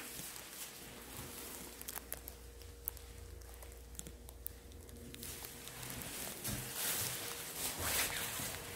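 Footsteps and scattered clicks and knocks of a handheld phone camera being carried from room to room, over a faint steady hum.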